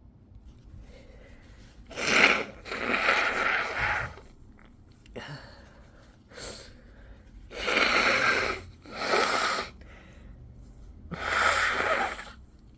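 A person sneezing and blowing hard through the nose, their nose irritated by pepper: about five breathy bursts, each around a second long, the first and loudest starting sharply about two seconds in.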